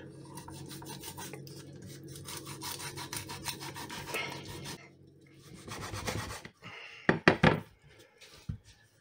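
Large kitchen knife sawing back and forth through a whole salted trout on a wooden cutting board, a rasping of the blade through skin and bone. About seven seconds in, a few short sharp knocks.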